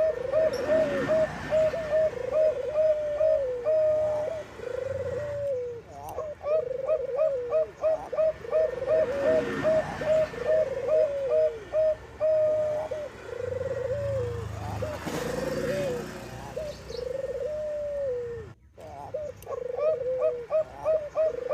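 Zebra doves of the Bangkok perkutut type cooing: quick runs of short staccato coos, each ending in a falling phrase, repeated over and over with a brief break about 18 seconds in.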